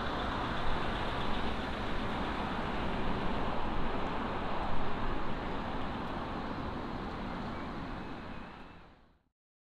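Steady roar of jet airliner engines, fading out and dropping to silence about nine seconds in.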